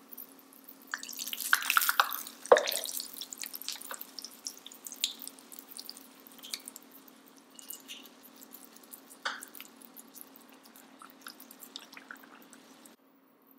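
Puri deep-frying in hot oil: crackling and sizzling, loudest between about one and three seconds in, with one sharp knock of metal tongs against the pan. Scattered pops then thin out, over a steady low hum.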